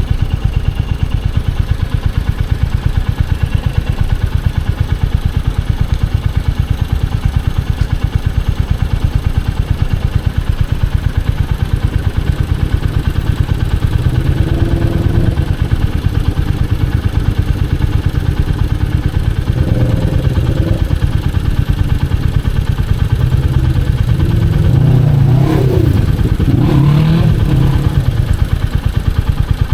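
Royal Enfield Hunter 350's single-cylinder engine and exhaust running with a steady, rapid low thump. The sound swells briefly about halfway through, again a few seconds later, and most strongly near the end.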